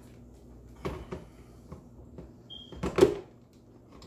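Light clicks and knocks of a blender jar being handled, then a loud clunk about three seconds in as the jar is set down onto the blender base.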